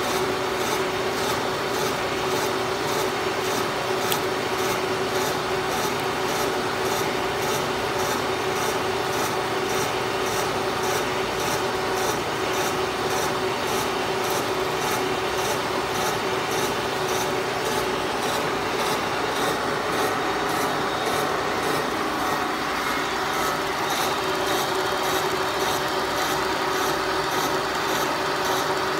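Brown & Sharpe 3A horizontal mill running a 4-inch helical slab milling cutter at about 100 RPM under power table feed: a steady rasping as the cutter shears a roughing cut off a block of Tyvar 88 plastic. Under it run a steady hum and a faint regular tick about twice a second.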